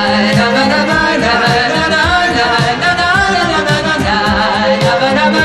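A man and a woman singing a sustained duet melody over a live orchestral pop backing with synthesizer.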